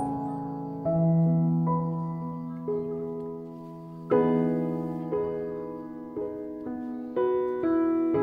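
Background piano music: slow single notes and chords, each left to ring and fade, with a fuller chord about halfway through.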